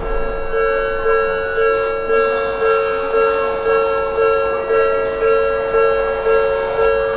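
Japanese railway level-crossing warning bell ringing its 'kan-kan' alarm, an even ringing tone struck about twice a second, signalling that a tram is approaching.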